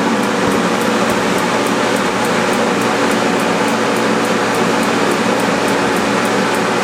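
Propane forced-air heater's electric blower fan running with the propane off: a steady, pretty loud rush of air with a low hum under it.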